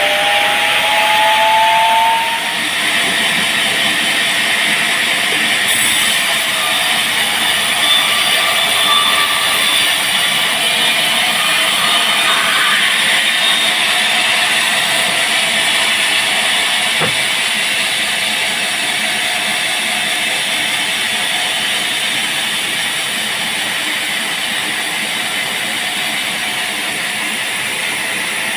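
Band sawmill running and cutting through a large teak log: a steady, loud machine noise, with a rising whine that stops about two seconds in.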